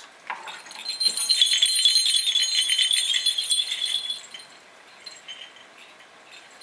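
A metallic jingling rattle, a quick shimmer of small clicks and high ringing, for about three seconds from about a second in.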